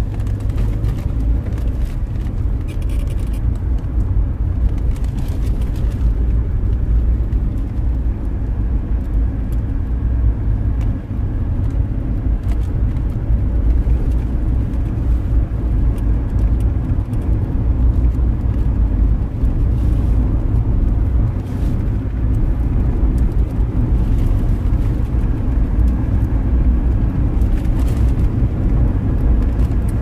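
Car driving along a road, its engine and tyre noise heard from inside the cabin as a steady low rumble.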